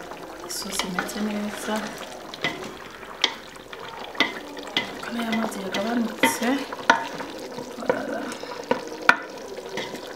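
Wooden spoon stirring a bubbling, steaming beef stew in an aluminium pot, with a steady bubbling hiss and sharp, irregular knocks of the spoon against the pot.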